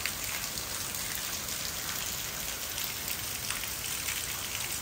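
Steady rain falling, with many small drops ticking close by.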